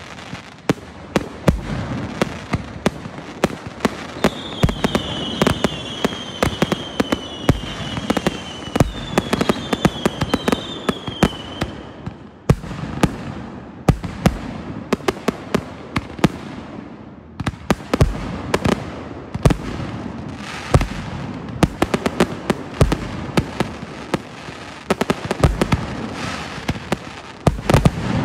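Fireworks display: a steady run of bangs and crackling from aerial shells and rockets, with a string of whistles falling in pitch in the first half, between about four and twelve seconds in.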